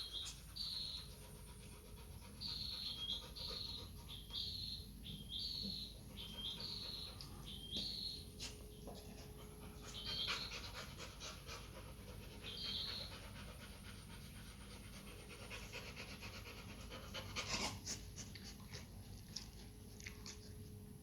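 Sleeping Labrador puppy panting softly, with a run of short high squeaks about once a second through the first dozen seconds and a few clicks near the end.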